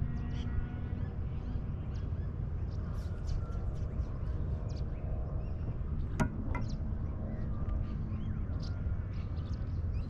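Steady low rumble of wind and water around the boat with scattered bird chirps, and a sharp click about six seconds in, followed shortly by a fainter one.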